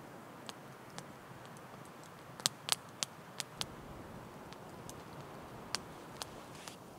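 Wood campfire crackling: irregular sharp pops over a soft steady hiss, with a quick run of louder pops about two and a half seconds in.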